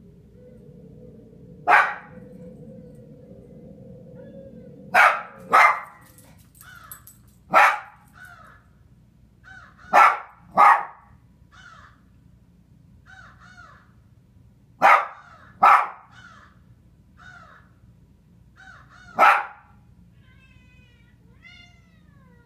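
A dog barking in short, loud barks, about nine of them, single or in pairs a few seconds apart. Fainter, higher calls come between the barks, and a few falling calls come near the end.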